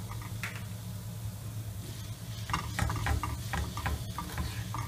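Steel spoon stirring and scraping shredded coconut and jam around a nonstick kadai. The scrapes and clicks grow frequent from about two and a half seconds in, over a steady low hum.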